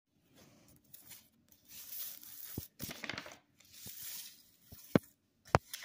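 Rustling, scraping handling noise, with a few sharp clicks and two louder clicks near the end.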